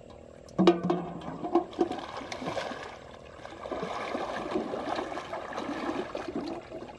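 Water splashing and sloshing as a person wades through waist-deep muddy water, pushing a metal pot along the surface, with a sudden loud splash about half a second in.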